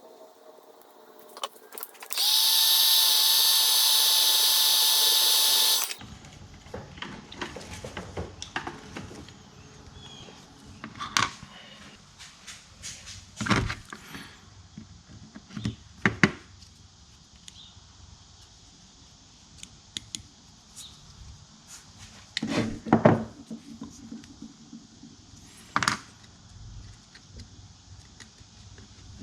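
Dremel rotary tool running at high speed with a steady high whine for about four seconds, starting and stopping abruptly. Then scattered clicks and knocks from handling the tool and its plastic parts.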